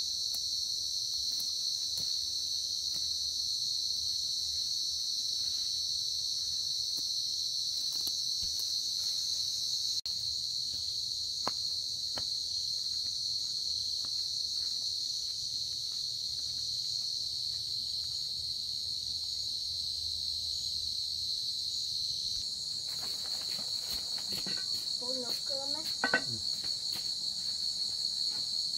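Steady chorus of insects, a continuous high-pitched trill. Near the end a short wavering call and a sharp knock cut in over it.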